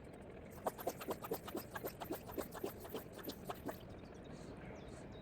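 A bird calling a quick series of about fourteen short notes, about four a second, for some three seconds, then stopping.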